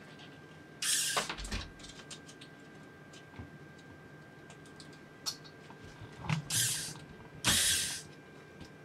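Corded electric screwdriver running in short bursts, backing out small screws inside a wireless mouse: one burst about a second in and two close together near the end.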